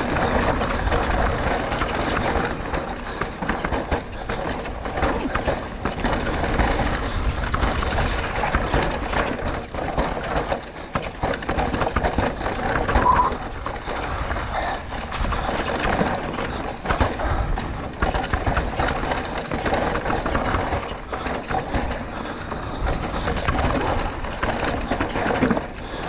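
Mountain bike riding down a dirt trail: a steady rattle of tyres and bike over rough ground, with many small knocks and wind noise on the helmet-mounted microphone.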